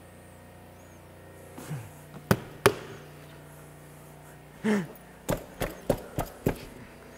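Tire beads snapping onto a golf cart wheel rim as the tire is inflated to about 30 psi: two sharp pops, a short falling rubbery squeak, then five quicker pops about a third of a second apart as the bead works its way into its seat.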